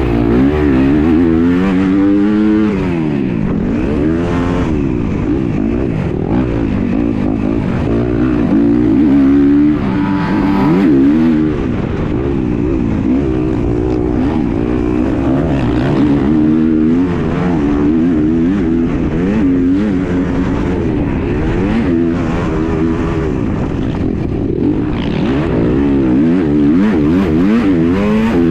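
Off-road dirt bike engine racing hard around a motocross track, heard close from on the bike, its pitch climbing and dropping over and over with the throttle and gear changes.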